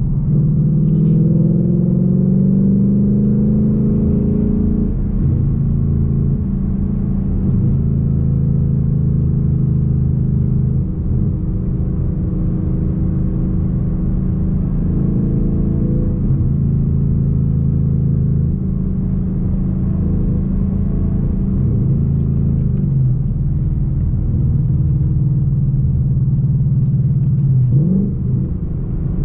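2021 Mustang GT's 5.0-litre V8 under way: the engine note climbs for the first five seconds, drops as the gear changes, then holds fairly steady while cruising. Near the end the revs briefly sweep up and fall back.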